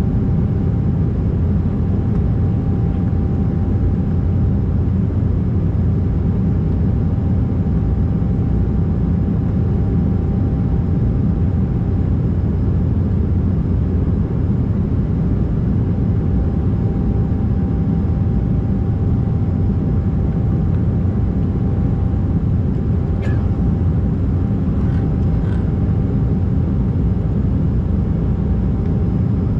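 Steady, loud low rumble of an Embraer 190's GE CF34-10E turbofan engines and airflow, heard inside the cabin during the climb after takeoff, with a thin steady tone running through it. A few faint ticks come about two-thirds of the way through.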